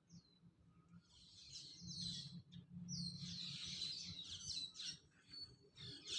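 Small songbirds chirping and twittering in a busy run of quick, high, falling notes that grow denser and louder after about a second and a half.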